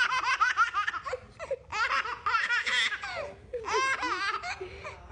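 A baby laughing hard: three bouts of quick, high-pitched giggles.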